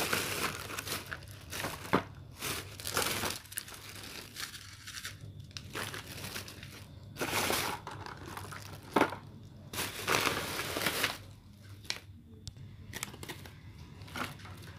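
Plastic bag crinkling and rustling as items are pulled out of it, in irregular bursts with short pauses between.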